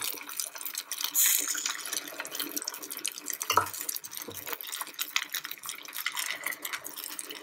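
Paniyaram batter sizzling and crackling as it is ladled into the hot, greased wells of a paniyaram pan, with a couple of soft knocks about halfway through.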